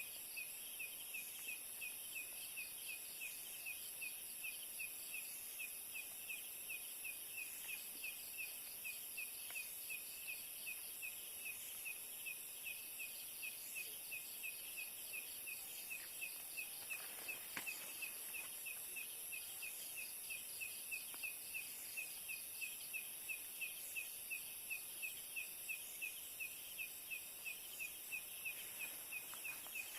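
Night-time insect chorus: a steady high hiss with a regular chirp repeating about twice a second, and a faint knock about halfway through.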